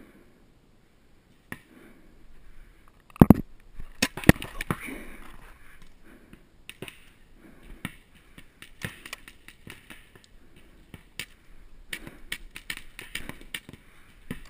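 Paintball markers firing around the field: irregular sharp pops, a few louder ones in a quick cluster about three to four seconds in, the rest scattered and fainter.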